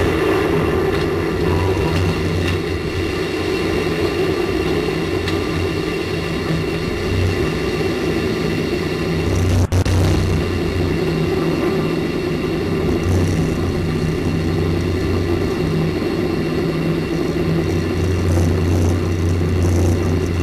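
A steady engine-like drone with a low hum that swells and fades in stretches, and a brief dropout about ten seconds in.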